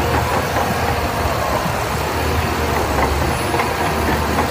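Shantui crawler bulldozer working, its diesel engine running steadily under load with the clatter of the steel tracks as it pushes wet sand.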